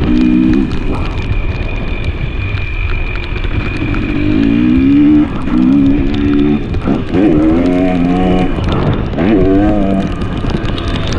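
2023 KTM 300 XC's single-cylinder two-stroke engine under way on the dirt bike, its revs rising and falling as the throttle is worked. The revs climb sharply twice in the second half.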